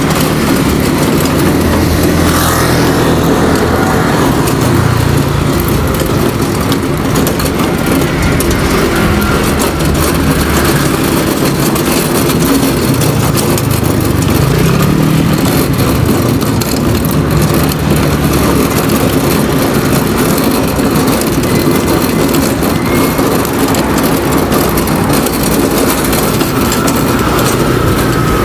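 Steady engine and road noise of a motor scooter being ridden through city streets, with wind noise on the microphone.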